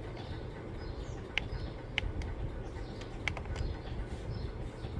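A few sharp single clicks of buttons pressed on a Ricoh laser printer's control panel, with no key beeps since the panel tones are switched off, over a low steady background hum.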